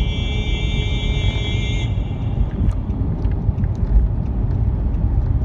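Steady low rumble of road and engine noise heard inside a moving car's cabin. A high held note with several overtones stops about two seconds in.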